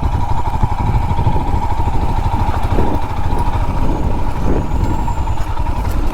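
Royal Enfield Himalayan's single-cylinder engine running steadily.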